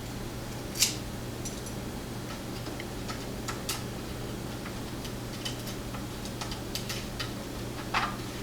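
Light, irregular metallic clicks and taps from a Yale pin-tumbler lock and its small parts being handled and set down, with a sharper click about a second in and another near the end. A steady low hum runs underneath.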